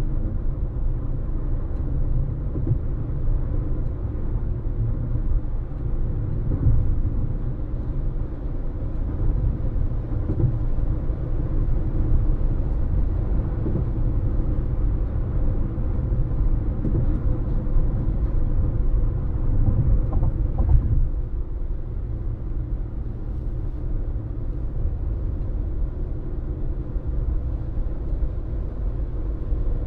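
Steady low road and tyre rumble of a moving car, heard from inside the cabin, with a faint hum of engine tones over it. It eases slightly about two-thirds of the way through.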